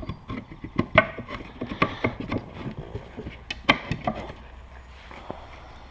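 Wooden beehive frame parts being handled and set into a wooden assembly jig: a run of light wooden knocks and clatters, thinning out after about four seconds.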